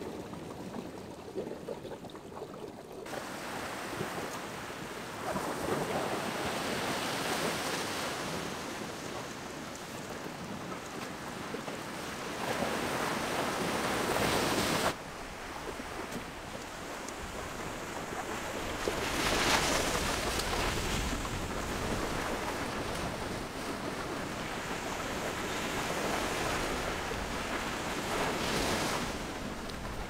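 Sea waves washing onto the shore, swelling and easing in surges every several seconds, with wind on the microphone.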